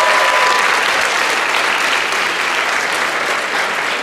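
Audience applauding steadily, slowly dying down. The last held note of music fades out in the first half second.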